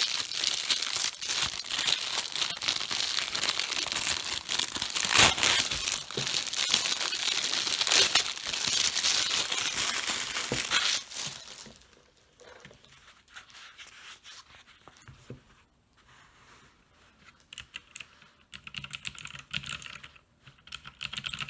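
Plastic bag crinkling and tearing as a pad is pulled out of its packaging, loud and continuous for about eleven seconds, then stopping; after that, only faint scattered clicks and handling.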